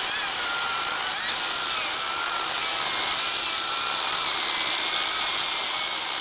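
Makita 40Vmax cordless chainsaw cutting through a log, a steady hiss of chain in wood over an electric motor whine that wavers in pitch as the load changes.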